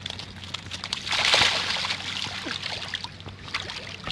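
Water sloshing and trickling, swelling about a second in and fading away over a couple of seconds, with small scattered clicks and knocks.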